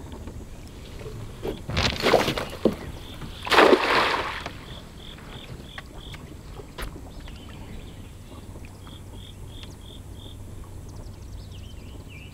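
A weighted cast net thrown from a boat: a rush of noise as it goes out, then a second, louder splash-like rush as it lands on the water, about a second and a half apart.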